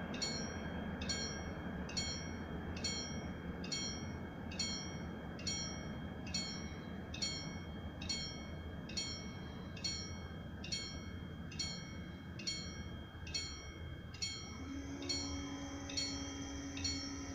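Railroad level-crossing warning bell ringing a single chime-like stroke about once a second, steady and even, sounding the warning that a train is coming and the barriers are about to close. A steady hum joins about fifteen seconds in, over a low background rumble.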